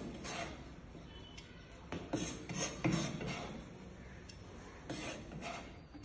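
Chef's knife chopping and scraping on a plastic cutting board: irregular knocks in small clusters, with rasping scrapes of the blade across the board.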